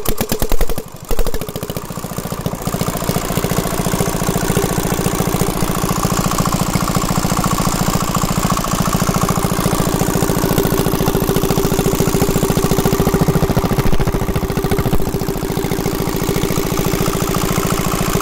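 Small single-cylinder diesel engine driving an irrigation water pump, firing after hand-cranking: a few loud, uneven beats in the first second, a brief falter, then it picks up over the next two seconds and settles into steady, evenly pulsing running.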